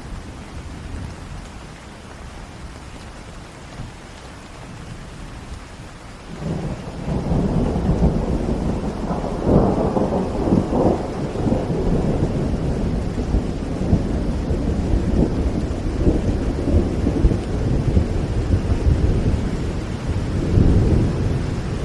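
Steady rain falling, then a long roll of thunder that starts about six seconds in, is loudest a few seconds later, and keeps rumbling, swelling again near the end.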